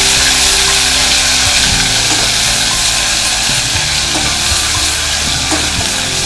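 Hot oil sizzling in a steel pot on a gas stove, with a spoon stirring and scraping against the metal: a steady hiss.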